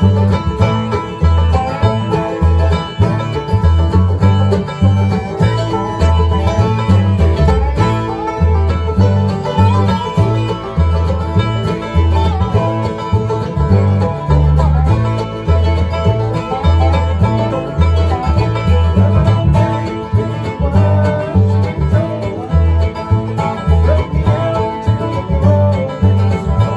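Bluegrass band playing an instrumental passage: picked banjo over strummed guitar, with a steady, rhythmic bass line underneath.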